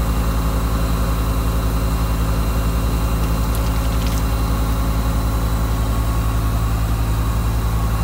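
Tank truck's heavy engine idling steadily with a fast, even throb. A few faint clicks come about three and a half to four seconds in.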